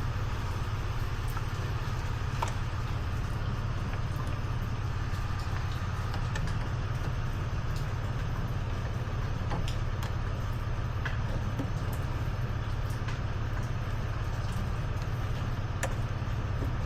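Steady low hum of a vehicle engine idling, with a few faint light clicks over it.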